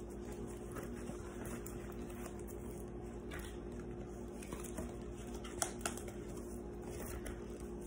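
Quiet room tone with a steady low hum, and faint shuffling and soft clicks from signboards being handled and swapped. There are two slightly sharper clicks about two-thirds of the way in.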